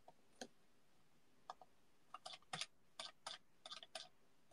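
Faint, irregular clicking of computer keys: a few isolated clicks at first, then several a second from about two seconds in.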